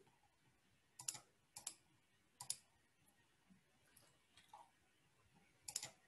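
A few scattered clicks of a computer mouse over near silence, with a quick double click near the end.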